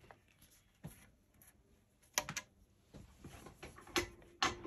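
Flat-bladed screwdriver working the tang screw of an Ardesa Pennsylvania percussion long rifle: scattered sharp clicks and light scraping, with a quick cluster of clicks about two seconds in and two more near the end.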